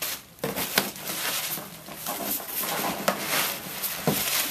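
Cardboard box and packaging being handled and pulled out: rustling and scraping with a few sharp knocks.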